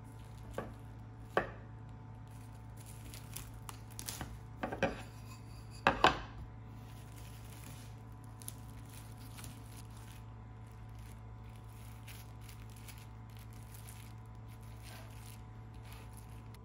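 Clear plastic cling wrap crinkling and rustling as hands wrap and press it around an air-dry clay tray. There are a few sharp taps in the first seconds, the loudest pair about six seconds in.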